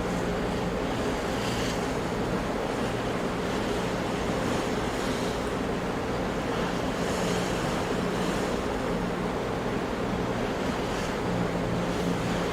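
Ocean surf, a steady rushing wash of waves that swells gently now and then, with a faint steady hum underneath.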